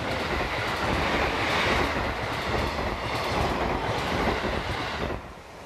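JR 711 series electric multiple unit running past close by, a steady rush of wheel and rail noise with some clickety-clack, cutting off abruptly about five seconds in.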